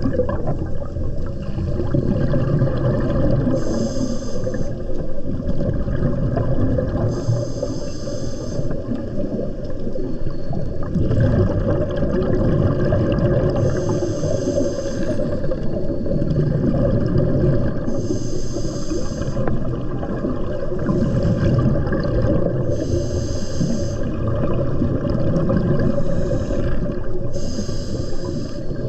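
Underwater sound of a scuba diver breathing through a regulator: a steady bubbling rumble, broken every few seconds by a hiss lasting about a second.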